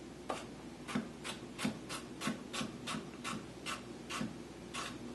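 Chef's knife dicing carrots on a wooden cutting board: about a dozen crisp knocks of the blade on the board, roughly three a second, stopping shortly before the end.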